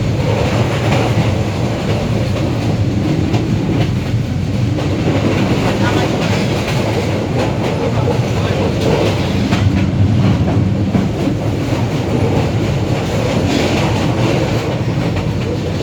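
A moving train running along the track, a steady loud rumble with dense rattling from the wheels and cars.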